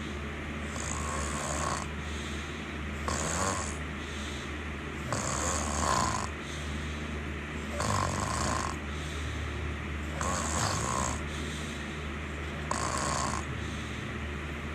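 Snoring in a steady rhythm, one breath about every two and a half seconds, over a constant low hum.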